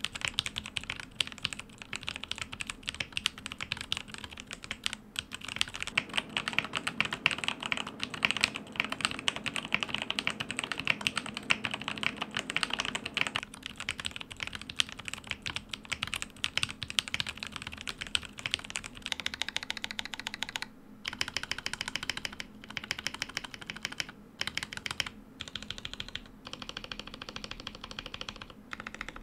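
Continuous fast typing on a tray-mounted AZIO Tera75 mechanical keyboard with Emogogo tactile switches and no dampening foam, with a few short pauses in the last third. The stabilizers sound good but could use a little more lube, in the reviewer's view.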